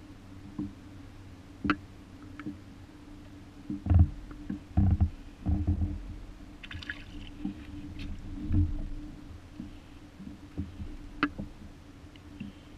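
Water lapping and sloshing against a GoPro dome housing at the waterline, heard as dull low thumps and gurgles, heaviest a few seconds in, with small clicks of drops and ripples.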